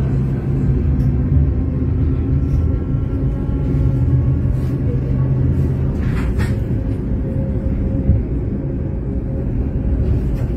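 Coupled set of Tatra trams running on street track, heard from inside the cab: a steady low rumble of wheels and motors with a faint motor whine, and a short clatter about six seconds in.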